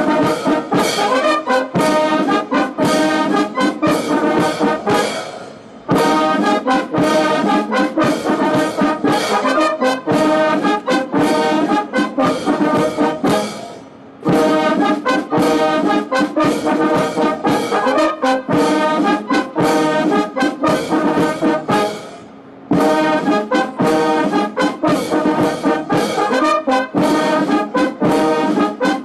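Military brass band playing ceremonial honors music in long phrases, with short breaks about every eight seconds.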